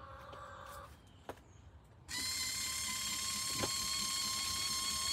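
The battery-powered motor of a Run-Chicken T-50 automatic coop door starts about two seconds in and runs with a steady whine, raising the sliding door on its automatic sunrise opening.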